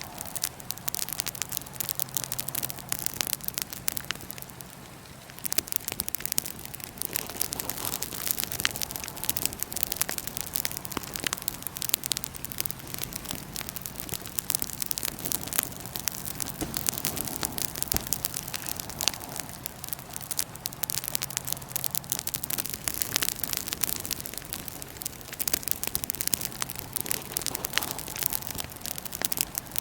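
Wood fire in a fire pit crackling, with dense, frequent sharp pops and snaps over a steady low hum. The crackles thin out briefly about four seconds in.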